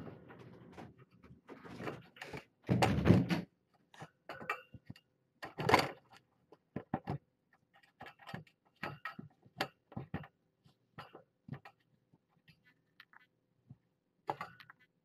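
A kitten brushing and bumping against the camera and its microphone, making a run of knocks, rustles and scrapes. The loudest bursts come about three seconds in and again near six seconds, then thin out to scattered light taps.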